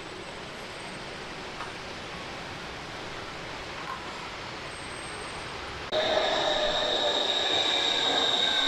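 Electric urban passenger train running, a steady quiet rumble. About six seconds in, it turns abruptly louder, with a steady high-pitched whine on top.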